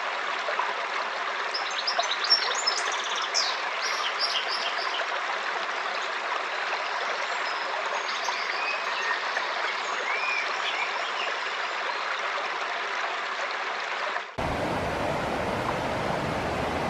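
A stream running with a steady rush, and small birds chirping over it, most busily in the first few seconds. About fourteen seconds in, it cuts suddenly to a deeper, fuller rush of water.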